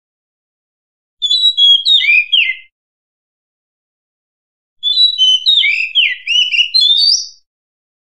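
Female Oriental magpie-robin singing: a short phrase of clear whistled notes gliding up and down about a second in, then a longer, more varied phrase of the same notes at about five seconds.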